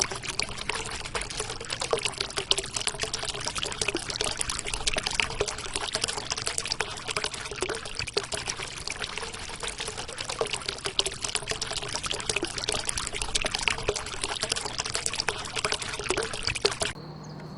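Spring water pouring and splashing steadily. It cuts off suddenly near the end, giving way to a quieter steady low hum and a thin high whine.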